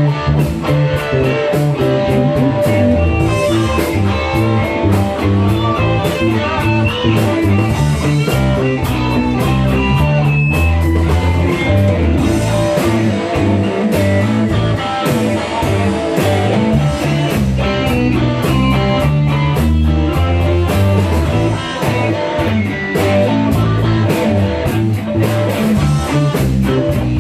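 Guitar-led music track, blues-rock in style, with bass and a steady drum beat.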